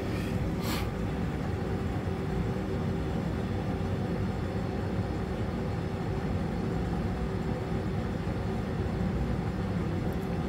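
BMW M42B18 1.8-litre four-cylinder engine running steadily at idle under a MegaSquirt ECU, with ignition timing the owner says is not right. A short click about half a second in.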